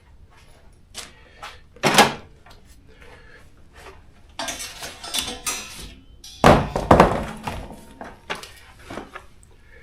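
Clattering and knocking of hand tools and hardware being handled during assembly: scattered clicks, a sharp thump about two seconds in, a rattling stretch a little past the middle, then heavy knocks near seven seconds.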